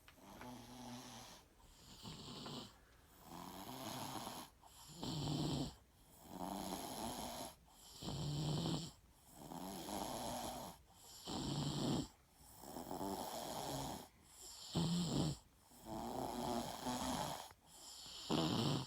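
A sleeper snoring steadily: a low pitched snore alternates with a breathier, hissing breath, about one full breath every three seconds.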